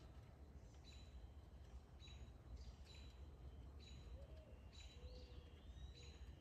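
Near silence with a bird chirping faintly about once a second, and a fainter, lower drawn-out call in the second half.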